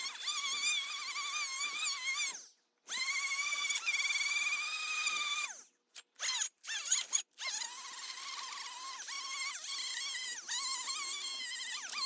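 A handheld power tool's electric motor whining in bursts of a few seconds. There are two longer runs, then some short blips, then a long run in which the pitch dips and recovers several times as the tool is loaded.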